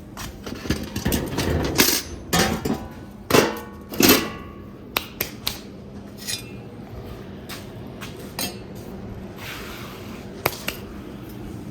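Metal tools clanking and scraping against the metal of a homemade fireplace during ash clean-out: a quick run of hard knocks and scrapes in the first four or five seconds, then scattered single clinks.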